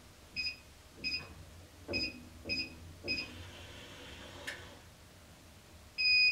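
Electronic keypad of a Nova safe beeping as a code is entered: five short beeps in quick succession, each with a soft key-press tap. Near the end comes one longer, louder beep as the code is accepted and the lock opens.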